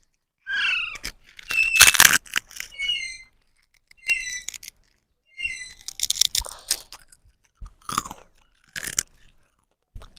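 Baby parrots giving short, harsh, repeated chirping calls, mixed with sharp crackling and crunching noises.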